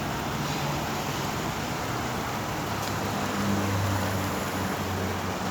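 Water running steadily down a sponge-stone garden waterfall, a continuous rushing splash. A low hum swells briefly a little past the middle.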